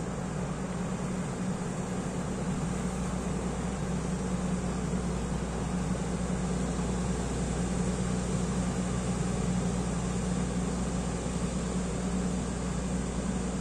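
Diesel engine of a passing inland motor barge running steadily, a low hum that grows a little louder toward the middle and then eases slightly.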